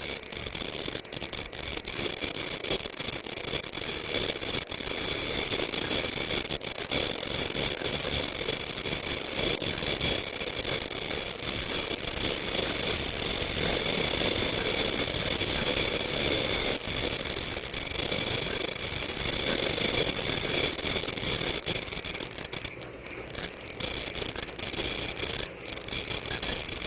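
KF94 mask automatic production machine running, a steady mechanical whir with several high-pitched whines and frequent light clicks.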